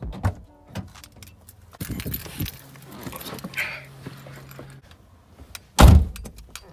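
Keys jangling and small handling clicks and rattles, with a faint steady hum for a couple of seconds midway and one heavy thump near the end.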